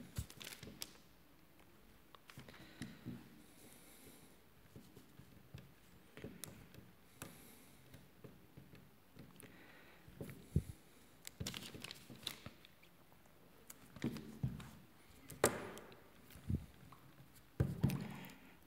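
Hands pressing and smoothing plasticine onto a small sculpted figure, making irregular soft handling noises with scattered sharp clicks and light knocks against the modelling board.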